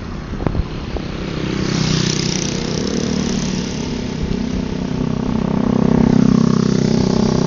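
An engine running steadily, growing louder toward the loudest point about six seconds in, with a couple of sharp knocks about half a second in.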